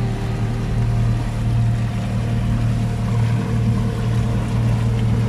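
Inboard engine of a boat under way, running steadily with a low hum, over the wash of water and wind.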